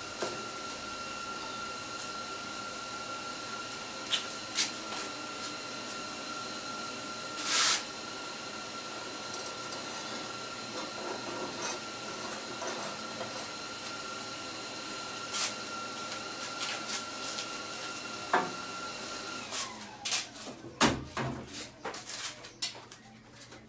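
Steady shop machine whine over a hiss, which winds down with a falling pitch about twenty seconds in. Scattered clicks run through it, and a few sharp knocks follow near the end, as steel is handled on the steel welding table.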